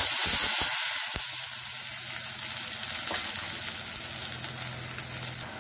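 Spice paste mixed with water hitting hot mustard oil in a kadai: a sudden loud sizzle that eases after a second or so into a steady frying hiss.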